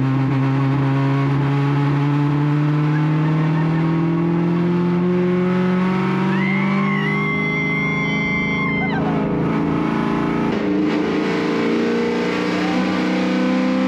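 BMW E92 M3's S65 V8 race engine pulling under load, its note rising slowly and steadily as the car gains speed, with a step in the note about ten seconds in. A high steady squeal lasts for about two seconds midway.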